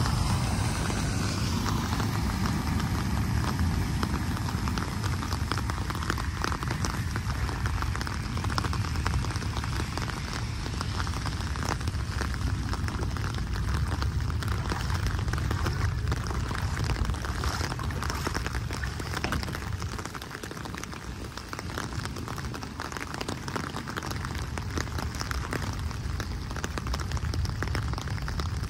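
Steady rain falling on a flooded street, with a low rumble beneath it that eases for a couple of seconds about twenty seconds in.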